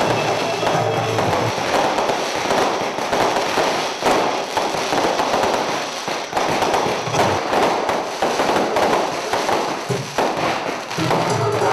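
A long string of firecrackers going off without a break: a dense crackle of rapid bangs.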